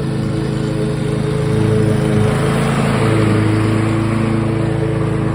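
Lawn mower engine running steadily at constant speed, with a rush of noise that swells about halfway through.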